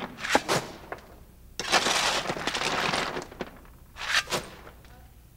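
Coal being shovelled into a steam locomotive's firebox, clattering and crashing in bursts, with a longer rushing stretch in the middle.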